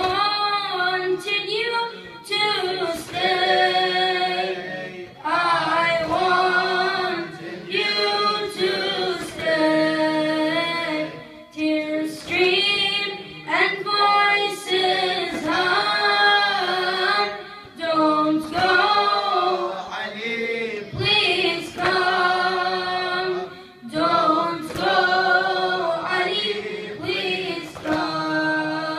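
A boy's unbroken voice singing a latmiya, a Shia mourning elegy, into a microphone. The melody runs in phrases a couple of seconds long with short breaks between them.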